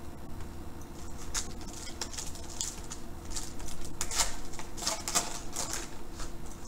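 Foil wrapper of a basketball card pack crinkling and tearing as it is pulled open by hand, a run of crackles from about a second in until near the end.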